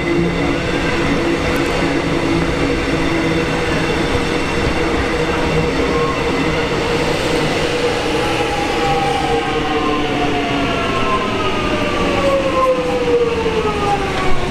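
Metro X'Trapolis electric multiple unit moving slowly past on the platform track, its traction motors and wheels running steadily. In the second half a whine of several tones falls gradually in pitch, as the train slows.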